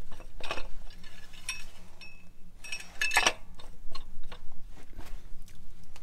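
Clinks and knocks of boots and hands on a tractor's metal steps and handrail while climbing up to the cab: sharp knocks about half a second in and about a second and a half in, and a cluster about three seconds in, some with a brief metallic ring.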